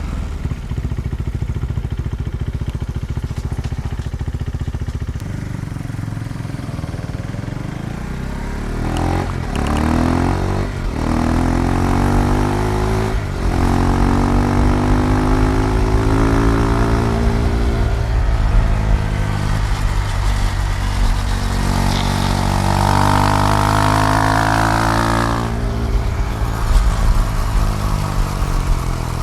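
KTM 390 Duke's single-cylinder engine running at low revs, then accelerating hard through several gears with short breaks at each shift from about nine seconds in. It eases off, then pulls to high revs again before backing off near the end.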